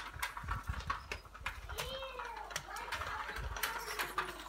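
Irregular light clicks and taps from a child's small bicycle rattling as it rolls across paving slabs.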